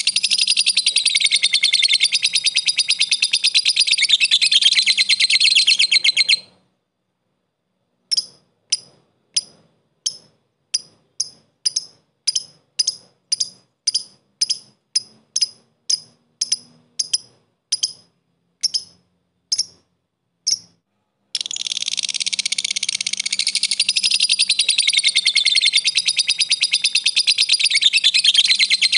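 Lovebird's long, rapid, unbroken chattering trill (ngekek) that cuts off suddenly about six seconds in. After a short pause come about thirty separate short, sharp chirps (ngetik), around three a second, spacing out near the end. After another pause the long rapid chatter starts again about 21 seconds in.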